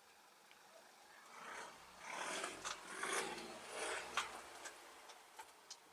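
Hands rubbing and pressing along a plastic lip spoiler stuck to the car's boot with adhesive tape, a scuffing, rasping sound that swells for a few seconds, with a few light taps near the end.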